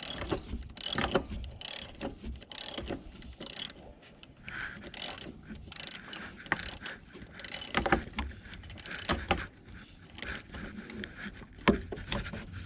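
Ratchet wrench clicking in repeated short strokes as it backs out a power steering pump mounting bolt, with a sharp knock about a second before the end.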